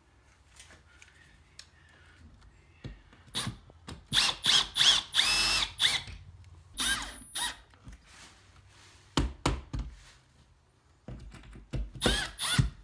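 Milwaukee Fuel cordless drill/driver run in several short bursts, its motor whining up each time, longest about two seconds in the middle, while driving a screw at a metal junction box, with clunks of the driver against the box between bursts.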